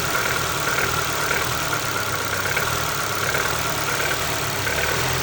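Ford Focus II 1.6-litre engine running at about idle, with a recurring knock that the owner hears when the throttle is blipped and is trying to trace.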